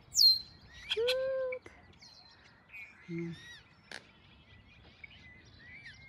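Small birds chirping and calling over reeds, a red-winged blackbird among them, opening with a loud high whistle that slides down. About a second in comes a short, lower, steady-pitched tone, and many quick high chirps and trills follow.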